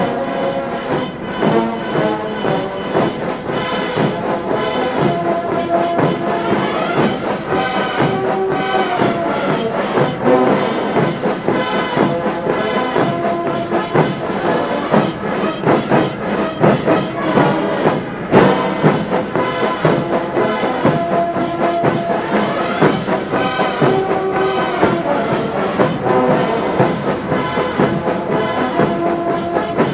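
Brass band music: sustained brass melody and chords over a steady beat.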